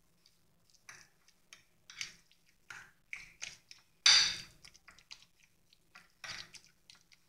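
A metal utensil mashing soft cooked pumpkin against a glass plate: irregular short squishes and scrapes, the loudest about four seconds in.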